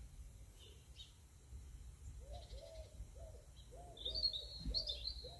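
A dog barking in quick repeated barks from inside a house, heard muffled through the walls, starting about two seconds in. A small bird chirps a few high notes over it near the end.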